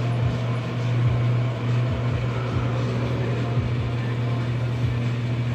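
A steady low hum with constant background noise underneath.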